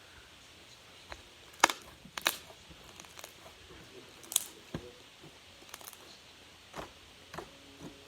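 Scattered sharp clicks and taps of small objects being handled, the loudest a few about a second and a half, two and a quarter, and four and a half seconds in.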